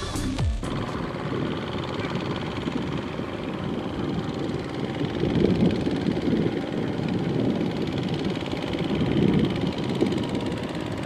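Single-cylinder diesel engine of a two-wheel walking tractor running steadily under load as it pulls a trailer laden with sacks of rice, a dense rumble that swells and eases a little. A music track cuts off about half a second in.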